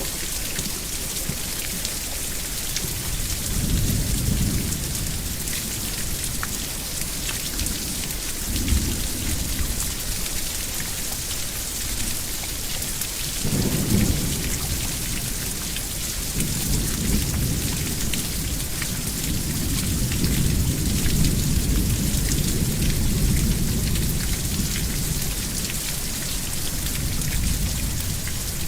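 Steady heavy rain hissing down while thunder rumbles several times: short low rumbles about four and nine seconds in, a sharper clap around fourteen seconds, then long rolling thunder through most of the second half.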